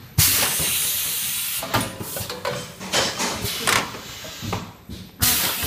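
Automatic tube filling and sealing machine running: a loud hiss of air starts suddenly and fades over about a second, a few clicks and knocks of the mechanism follow, and another hiss starts near the end.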